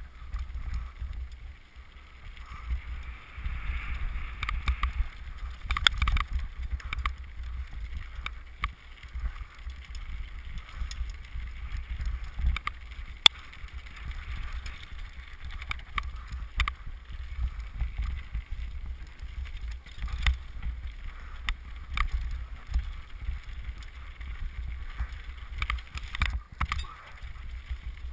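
2007 Trek Top Fuel mountain bike descending a rough gravel trail at speed: a steady low rumble of tyres and wind with frequent clicks and rattles from the bike over stones, and one sharp knock about halfway through.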